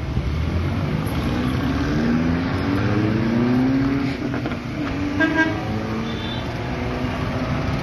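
Street traffic rumble with a vehicle engine climbing slowly in pitch for a few seconds, then a short car horn honk about five seconds in.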